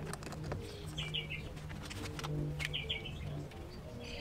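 Songbird repeating a short, quick chirping phrase about every second and a half, over a low droning tone, with scattered light clicks and knocks from the rooftop tent's frame being handled.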